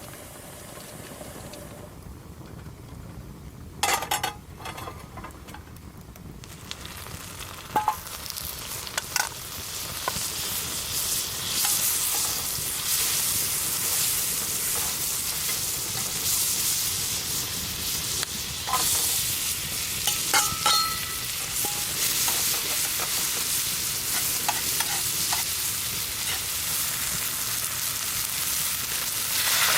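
Food frying in a pan over a campfire. The sizzle is faint at first, then swells into a steady, loud hiss about a quarter of the way in. A few sharp clinks of utensils against the pan are heard.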